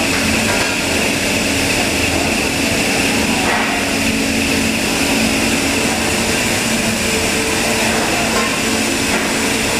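Steady machine noise: a continuous whirring hum with several steady tones running through it, unchanging throughout.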